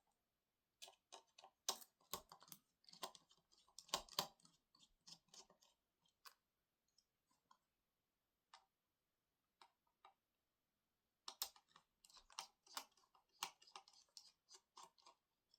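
Faint, irregular small clicks and taps from handling tools and parts of a laptop being taken apart, in two clusters: one about a second in and one about eleven seconds in.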